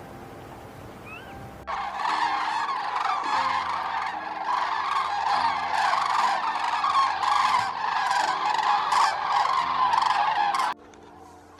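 A large flock of birds calling all at once, a dense chorus of many overlapping calls that starts suddenly about two seconds in and cuts off abruptly about a second before the end. Faint single chirps come before it.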